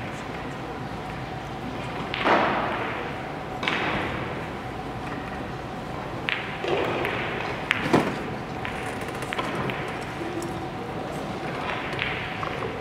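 Billiard balls clicking and knocking at several tables in a large hall: a few scattered sharp clicks and duller knocks over a steady background hum and faint chatter.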